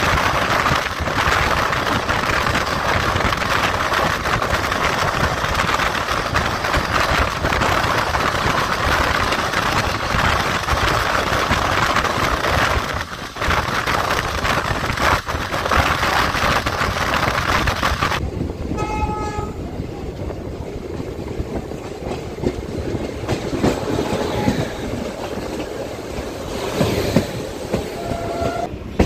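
Wind and wheel-on-rail noise from the open doorway of a moving passenger train at speed. About two-thirds of the way through the noise becomes quieter and a train horn gives a short honk. Brief horn toots follow near the end as an electric locomotive passes on the next track.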